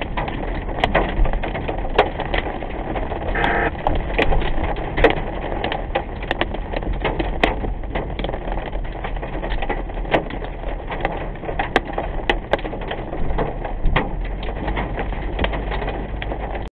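Heavy rain pelting a car's roof and windshield, heard from inside the cabin: a steady wash of noise over the hum of wet tyres on the road, broken by frequent sharp, irregular clicks of drops striking the glass.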